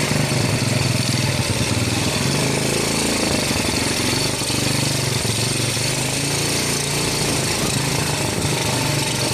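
Small engine, most likely a motorcycle's, running steadily under way with a fast pulsing note, with a constant rush of wind and road noise over it.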